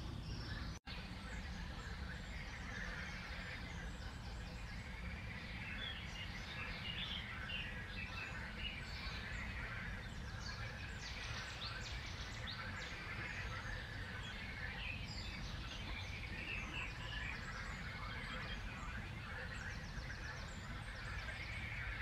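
Small birds chirping and trilling in a continuous, overlapping chorus over a low steady rumble. The sound drops out for an instant about a second in.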